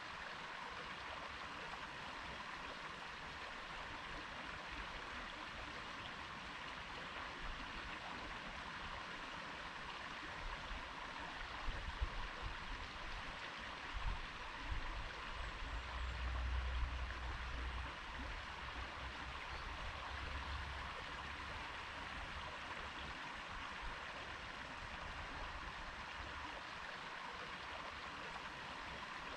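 A stream flowing over stones, a steady rushing and gurgling of water. There are a few low rumbles in the middle of the stretch.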